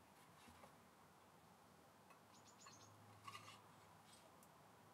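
Near silence, with faint metal handling sounds as a round steel bed rail is slid through the Emco Unimat SL lathe's saddle: a quick run of light ticks a little past two seconds, then a brief clatter just after three seconds.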